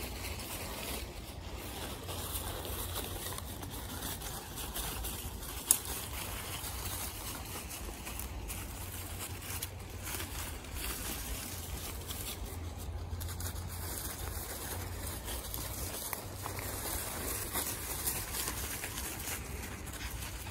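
Dry fallen leaves rustling and crunching underfoot as small dogs and a walker move through them, over a steady low rumble. One sharp click about six seconds in.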